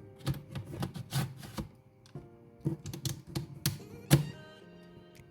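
Plastic clicks and knocks of a hard-drive caddy being slid into a laptop's optical drive bay, the loudest knock about four seconds in, over background music.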